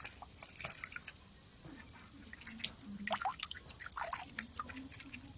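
Water dripping and trickling from a mesh keep net lifted out of a river: many small, irregular drips and plinks.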